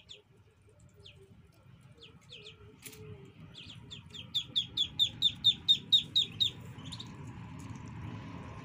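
Duckling peeping: a few scattered peeps, then a run of about a dozen loud, quick peeps, about four a second, each dropping slightly in pitch.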